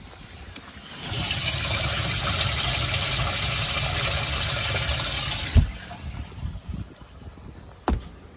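Livewell pump spraying water into the boat's livewell: a loud hiss of spray starts about a second in and cuts off after four to five seconds, followed by two dull thumps.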